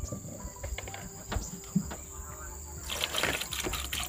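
Scattered small clicks and knocks, then a burst of crackly rustling about three seconds in, the sounds of food and dishes being handled for a meal. A steady high insect drone runs underneath.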